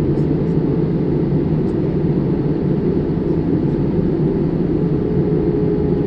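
Cabin noise of a jet airliner in flight: a loud, steady rumble of engines and rushing air heard through the fuselage, with a faint steady hum.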